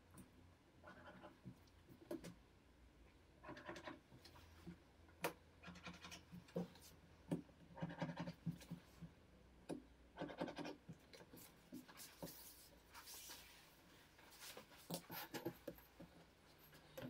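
Faint scratching and rubbing of sheet material being handled on a cutting mat, in short bursts every second or two, with a few light clicks and taps.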